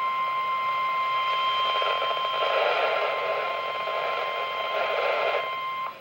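Emergency alert attention tone: a single steady high tone, the 1050 Hz NOAA Weather Radio warning alarm that heralds a tornado warning, cutting off just before the end. A rough, noisy layer swells beneath it for a few seconds in the middle.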